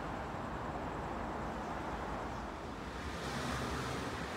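Steady background noise of an open railway station platform: a low rumble with a hiss that grows brighter about three seconds in.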